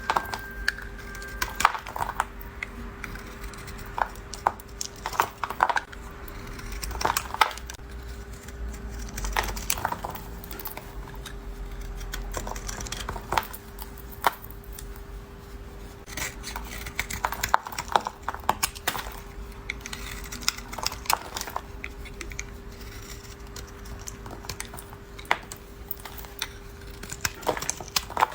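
Knife cutting and carving a bar of soap: irregular crisp clicks and crunches, some in quick clusters, over a faint steady hum.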